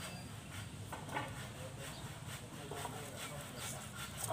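Kittens suckling and shifting against a nursing dog on a plastic tarp: soft irregular clicks, two or three a second, and rustling over a low steady hum.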